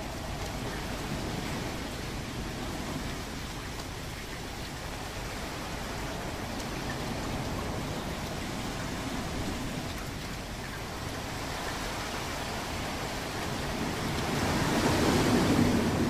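Ocean waves washing in a steady rush of surf, with one wave swelling louder near the end.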